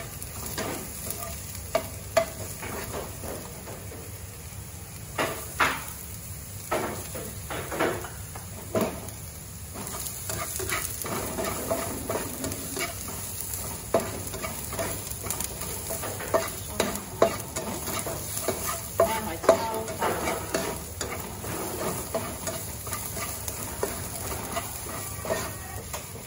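Chopped onion and garlic sizzling in oil in a nonstick wok as they fry toward golden brown, stirred with a spatula that scrapes and knocks against the pan at irregular moments.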